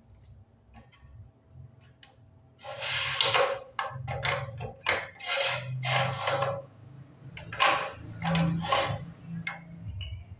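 A button-badge press being worked by hand: a few light clicks, then a run of short sliding, rubbing strokes, about one every half second to second.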